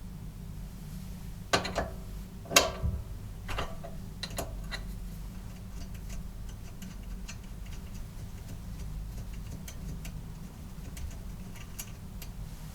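Hard clinks and knocks of small metal parts being handled, loudest about two and a half seconds in, followed by a run of light, irregular ticks, over a steady low hum.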